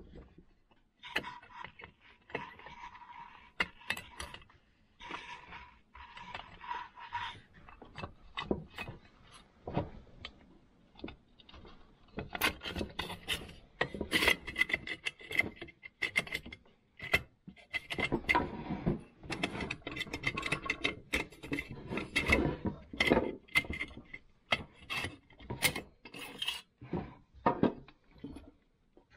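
A chainsaw muffler being fitted and handled by hand on a wooden workbench: metal parts scraping and rubbing against the saw's body, with many small clicks and knocks.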